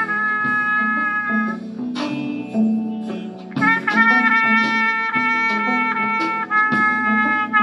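Trumpet played with a metal straight mute, holding long sustained notes of a melody. The first note ends about a second and a half in, and a new phrase starts after about three and a half seconds.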